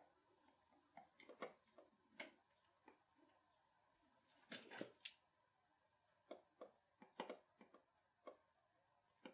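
Faint, irregular clicks and light metallic knocks of hand tools being worked down in a pickup's engine bay, with a short cluster of louder clicks about four and a half seconds in.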